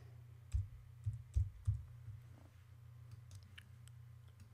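A few quiet computer mouse and keyboard clicks, bunched between about half a second and two seconds in, then only a faint steady low hum.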